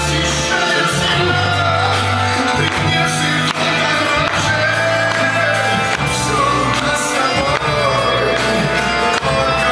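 Slow song with a singing voice over held bass notes, played for a couple's first dance.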